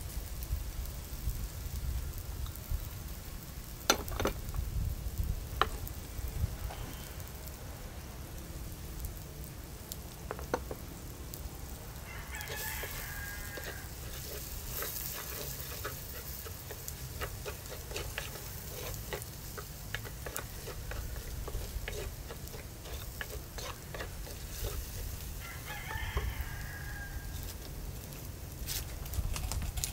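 Wooden spoon stirring and scraping a grated mixture frying in oil in a heavy pot, with light sizzling and scattered clicks of the spoon. A rooster crows twice, about 12 seconds in and again near 26 seconds.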